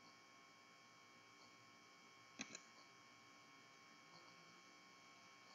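Near silence: a faint steady electrical hum, with one faint click about two and a half seconds in.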